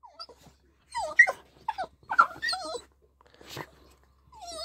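Small dog whining in a series of short, high, wavering whines, the last one sliding down in pitch near the end. Her owner takes it for eagerness to have the cased gun taken out and go hunting.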